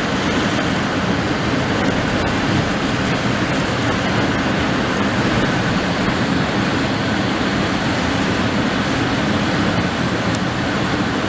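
Strong wind buffeting the microphone over rough harbour water, with waves breaking against a rock seawall: a steady, loud rushing noise that cuts off suddenly at the end.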